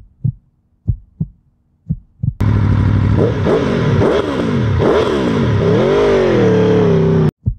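A heartbeat sound effect, slow low thumps in pairs, then about two and a half seconds in a motorcycle engine revving over and over, its pitch rising and falling with each blip of the throttle, which cuts off suddenly near the end.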